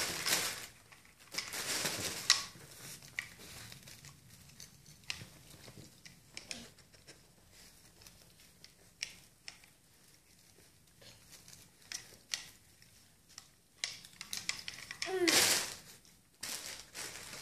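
Gift wrapping paper and foil crinkling and rustling as they are disturbed, in loud bursts near the start and again near the end, with scattered small crackles and clicks between.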